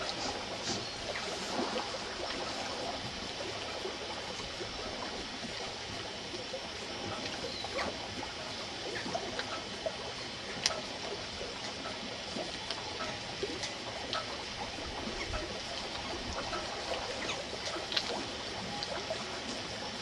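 Small waves lapping and trickling against a boat hull, a steady splashy wash with a few sharp ticks, the clearest about halfway through and near the end.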